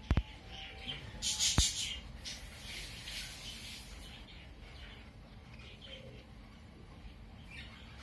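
Young budgerigars chattering with harsh, scratchy chirps, loudest about a second in and then fading to occasional small calls. Two sharp clicks come near the start.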